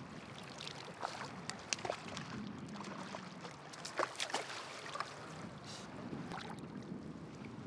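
Steady rush of river current, broken by several short, sharp splashes and knocks, the loudest about four seconds in, as a hooked brown trout is brought into a landing net in the water.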